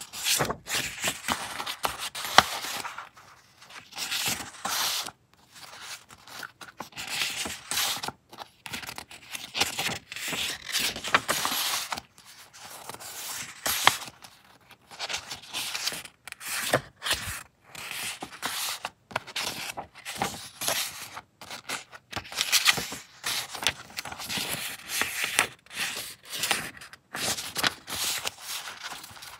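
Sheets of assorted printed paper being leafed through and shuffled by hand: crisp rustles and slides of paper against paper, in short irregular runs with brief pauses.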